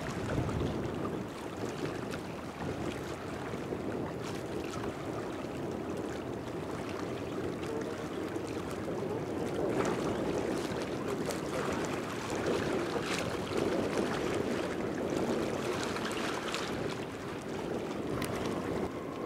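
Distant jet engine noise of a British Airways Airbus A320-family twin-jet climbing away after take-off: a steady rushing rumble.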